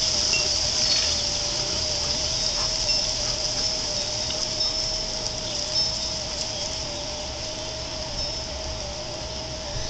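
Outdoor ambience: a steady high hiss and a constant low hum, with scattered short high-pitched chirps.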